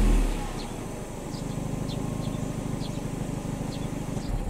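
Nissan C25 Serena's 2.0-litre four-cylinder engine heard at the tailpipe of an aftermarket Fujitsubo muffler, settling from a 4000 rpm rev back to a steady idle. The sound cuts off near the end.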